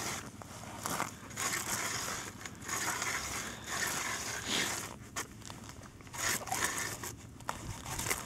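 Hand ice auger's blades cutting through lake ice about two feet thick, a crunching scrape that swells and fades with each turn of the handle, roughly once a second.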